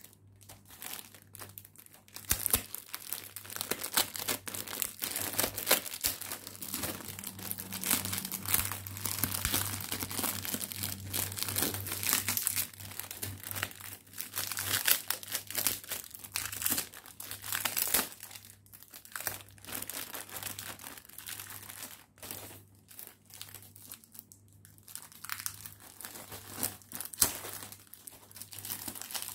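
Cellophane wrapper of a biscuit pack crinkling and tearing as it is cut with a knife and pulled off by hand, a dense irregular run of crackles with a few short pauses.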